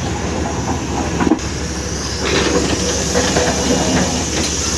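Heavy diesel machinery running steadily with a low, even rumble. A sharp click about a second in marks a change to another idling diesel, which grows louder from about two seconds in.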